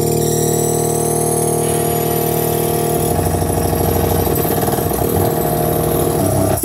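Electronic music from a synthesizer: a dense sustained drone with slowly rising high tones, turning into a fast, buzzing stutter about three seconds in.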